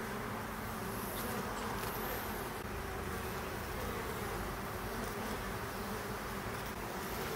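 Honeybees buzzing steadily around the entrance of a wooden beehive, a continuous even drone of many bees.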